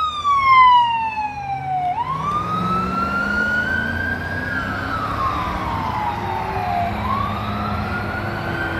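Emergency vehicle siren on a slow wail. The pitch falls over the first two seconds, snaps back up and climbs, falls again until about seven seconds in, then rises once more near the end.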